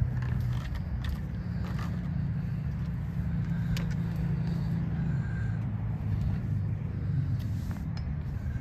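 Steady low outdoor rumble, with a few faint, irregularly spaced knocks of footsteps crossing a playground bridge.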